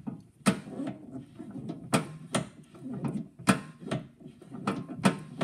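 Metal clicks and clacks from the horn engagement lever of an Edison Diamond Disc phonograph being worked back and forth by hand on its freshly oiled pivot, about five sharp clicks over a lighter rattle.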